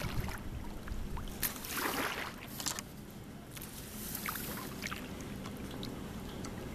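Bay water splashing and lapping against a Sea Eagle 370 inflatable kayak, with a cluster of small splashes and drips about two seconds in, then a steady low wash of water.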